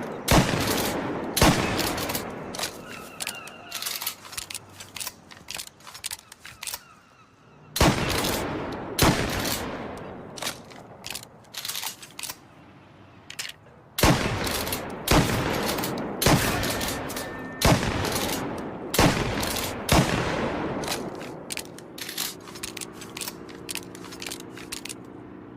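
Remington 870 pump-action shotgun firing again and again at irregular intervals, each loud shot trailing off in a long echoing decay, with smaller sharp cracks and clicks in between.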